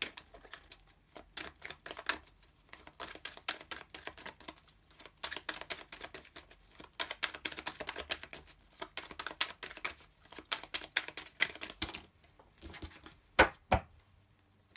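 A deck of oracle cards being shuffled by hand: a long run of quick, soft clicks of card against card, with two louder knocks near the end.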